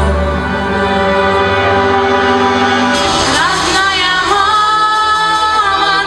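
Women singing a song into microphones over instrumental backing music; about halfway through, the voice glides upward and holds a long note with vibrato.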